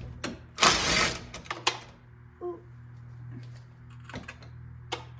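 Hand ratchet wrench clicking rapidly for about half a second as a 10 mm bolt on the engine fan is run out, followed by a few single clicks and light knocks of the tool.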